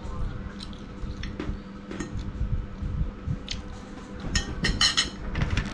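Wet chewing and mouth sounds of someone eating rice, with a metal spoon and fork clicking and scraping on the plate; a quick run of sharper clinks comes about four to five seconds in.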